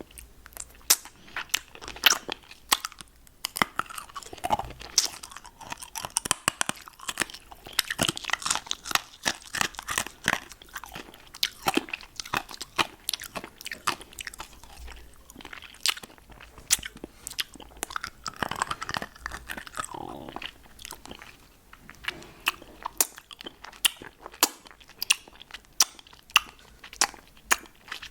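Close-miked ASMR mouth sounds on a lollipop: a steady stream of sharp wet clicks, smacks and crunches, denser in two stretches.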